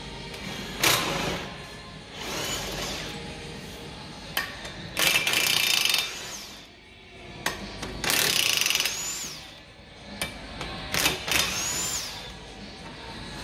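Cordless impact gun run in about five short bursts at a brake disc on the front wheel hub, its whine rising in pitch as each burst spins up. Background music plays throughout.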